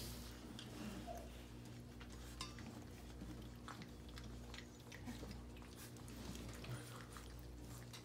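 Several puppies lapping and smacking at soft gruel in a stainless steel puppy feeding saucer: faint, scattered wet clicks over a steady low hum.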